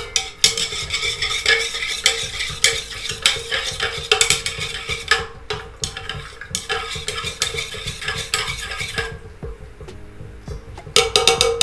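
Glass stirring rod clinking against the inside of a glass laboratory beaker of aqua regia as it is stirred, a rapid run of ringing clinks that stops about nine seconds in, with a few more near the end. The stirring is dissolving technical urea into the acid to neutralize it.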